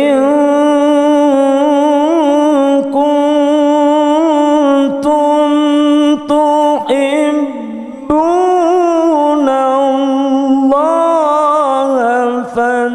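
A man reciting the Qur'an in the melodic qira'ah style into a handheld microphone, holding long ornamented notes whose pitch wavers and glides. There are brief breaks between phrases and a longer pause for breath about eight seconds in.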